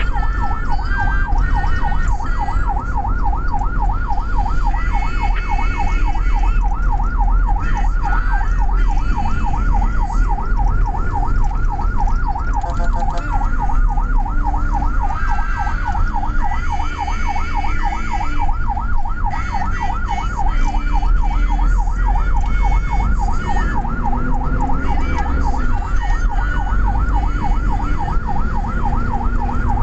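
Ambulance siren in fast yelp mode, its pitch sweeping up and down several times a second without pause, heard from inside the ambulance's cab over the engine and road rumble.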